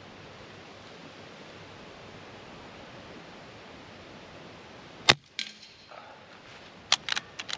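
Kral Puncher Breaker pre-charged pneumatic air rifle firing a single shot about five seconds in: one sharp, loud crack, with a fainter crack a moment later. Near the end comes a quick run of four or five metallic clicks as the side lever is cycled to cock it and load the next pellet.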